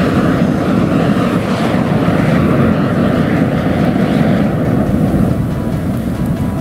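A tube packed with about 50,000 matchsticks burning as a jet, blasting flame and sparks out of its end with a loud, steady rushing noise like a small jet engine. The higher part of the rush eases a little near the end.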